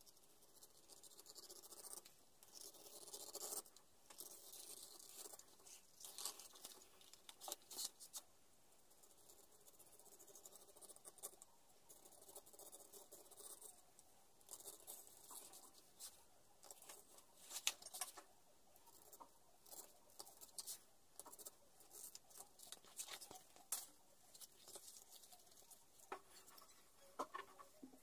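Knife blade slicing through leather on a wooden cutting board: faint, irregular scratchy cutting strokes, a few of them louder.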